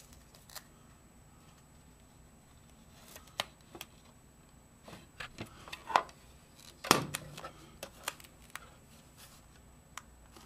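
Handling noise from a clear plastic camera case and sticky-back foam being worked by hand: scattered small clicks, taps and rustles, with one louder knock about seven seconds in.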